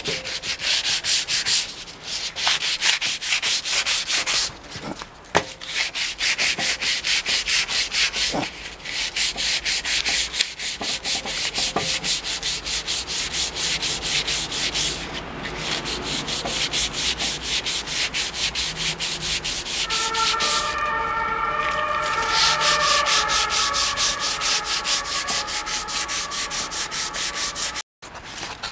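240-grit sandpaper rubbed by hand over a bare wooden shotgun stock in quick, even back-and-forth strokes, with brief pauses. This is the smoothing of the bare wood before it gets an oil finish. A faint pitched tone sounds in the background during the last several seconds.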